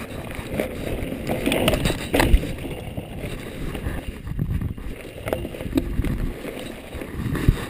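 Mountain bike riding fast down a dirt forest trail: tyres rumbling over the dirt and wind buffeting the microphone, with knocks and rattles of the bike over bumps, a sharp knock about two seconds in and another near the end.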